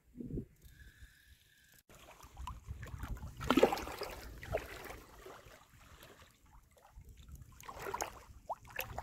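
Water sloshing and splashing around a landing net dipped in shallow lake water, starting about two seconds in, with the loudest splash about a second and a half later and a few more near the end.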